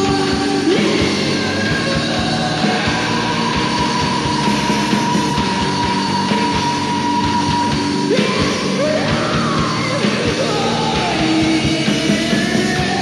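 Industrial noise-rock recording: distorted guitars, bass, keyboards and drums playing loudly and steadily. A high held tone gives way to rising, sliding pitches about eight seconds in.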